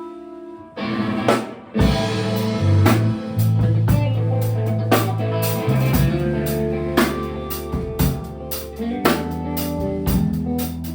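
Live band playing a song: a held guitar chord rings, then about a second in the drum kit, bass and guitar come in together and drive on with a steady beat of sharp drum hits.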